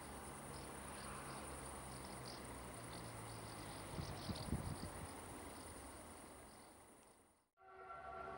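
Crickets chirping in a steady high-pitched trill over the low hum of a Siemens Smartron electric locomotive approaching with a freight train, with a few low thumps about four seconds in. The sound fades out near the end, and a new steady tone starts just after.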